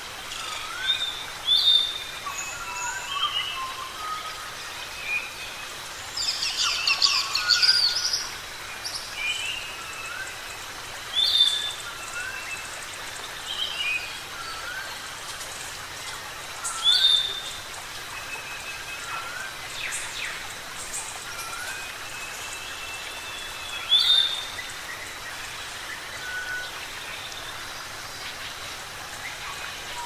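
Many birds calling at once: chirps, short whistles and repeated rising notes over a steady background hiss. A few loud sharp calls stand out every several seconds, with a dense burst of calls around six to eight seconds in.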